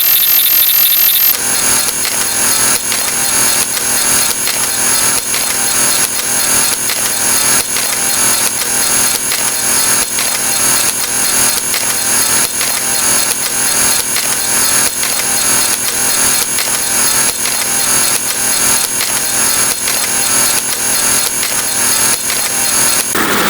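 Stock sound effects stacked and repeated rapidly, merging into a dense, steady rattle of clicks. The texture changes about a second in and stops shortly before the end.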